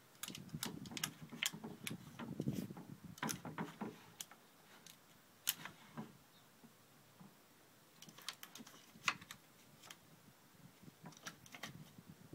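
Norwich terrier moving about while searching: faint, irregular light clicks and taps with some rustling, busiest in the first few seconds and again around eight to nine seconds in.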